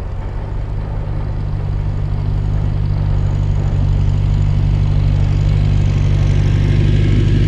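Old farm tractor engine running steadily as the tractor drives toward the camera, a low, even engine note growing gradually louder.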